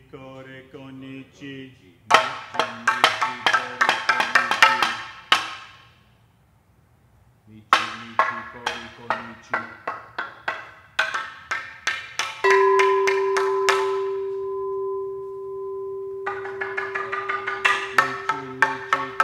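Custom-made ceramic percussion instruments, paddle-shaped slabs struck with small mallets, played in quick runs of pitched, clacking notes. The runs stop for a moment of near silence and start again. About twelve seconds in, one long ringing tone sounds and keeps ringing under a new run of fast strokes.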